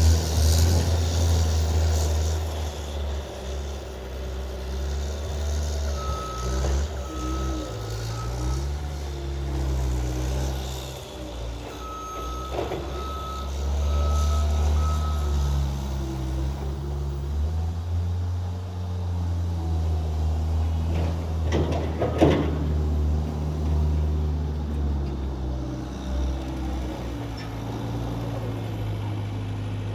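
Skid steer engine running and changing speed as it works, with its reverse alarm beeping at a steady pitch, about two beeps a second, in two stretches. A few knocks stand out about two-thirds of the way in.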